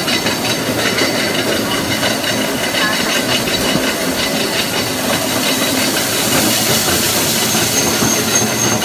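Small-scale maize roller mill and its milling line running steadily under test: a loud, even machine noise with several steady tones over a hiss.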